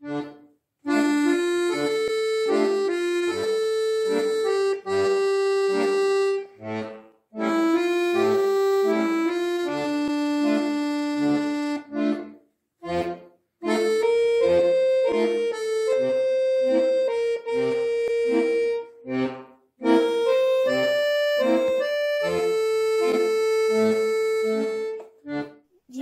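Hohner piano accordion playing a song melody in phrases of five or six seconds, with short breaks between them, over short, regularly repeated low bass notes.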